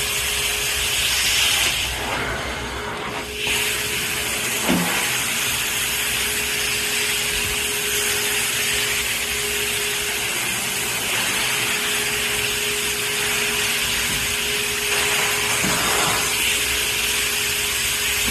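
Carpet-cleaning extraction wand drawing water and dirt out of a carpet with a steady suction hiss and a constant whine. The hiss drops for a second or so, about two seconds in.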